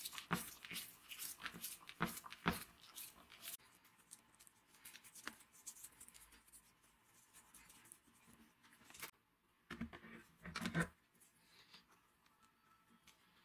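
Parts of an angle grinder being handled and fitted together on a wooden bench: a quick run of small clicks and taps, then scattered light knocks, with two louder knocks about ten seconds in as the gear head goes onto the plastic motor housing.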